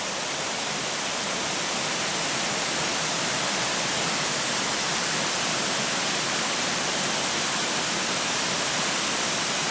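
Steady rush of a waterfall on Dodd Creek, the water pouring down over rock close by. The flow is lighter than at high water but still strong.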